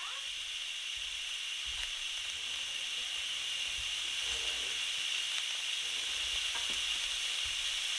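Instant Pot pressure-release valve opened for a quick release, venting steam with a steady hiss that grows slightly louder, a few faint ticks mixed in.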